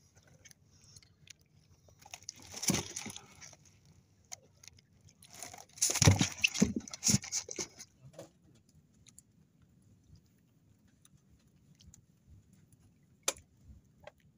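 Handling noises on a small fishing boat: two spells of rustling and knocking, about two seconds in and about six seconds in, with a single sharp click near the end.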